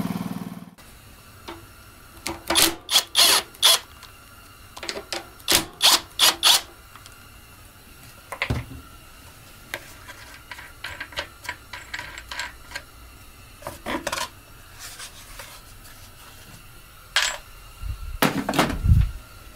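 Hands removing the plastic air cleaner cover from a Honda GX240 engine: scattered clicks, taps and plastic rattles, with a duller knock about eight seconds in and a heavier knock near the end. A louder sound cuts off within the first second.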